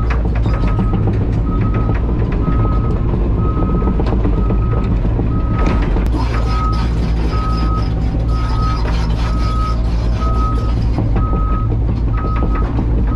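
A backup alarm beeping at a steady pitch, about two beeps a second, over a diesel engine running steadily, such as the CAT 320 GC excavator's.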